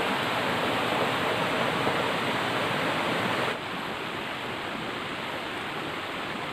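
Steady rush of flowing water, stepping down abruptly to a lower level about three and a half seconds in.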